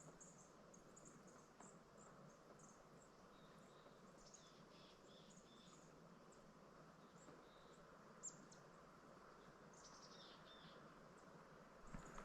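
Near silence with faint, high, short bird chirps scattered throughout, some sweeping downward, and one faint click about eight seconds in.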